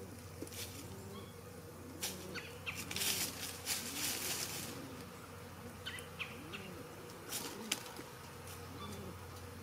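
Soft, low cooing from pigeons repeating about once a second, with a few seconds of feather rustling from a resting hen starting about two seconds in.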